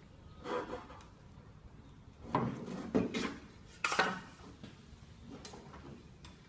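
Several short scraping knocks, about a second apart, the loudest in the middle and a fainter one near the end.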